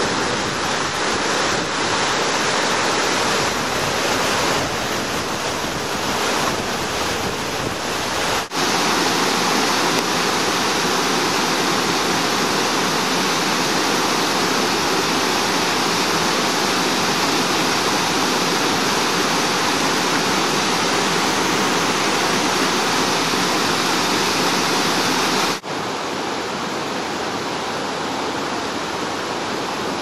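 Mountain stream cascading over rocks in small waterfalls: a steady, loud rush of water. The sound breaks off for an instant twice, about a third of the way in and near the end, and is a little quieter after the second break.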